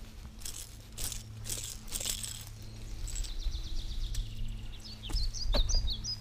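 Clothing and hands rustling close to the microphone while a bass is unhooked with pliers, with birds chirping near the end over a steady low hum.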